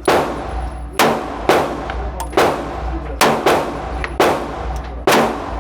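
Gunfire at a shooting range: about nine single shots at irregular spacing, each cracking sharply and echoing away.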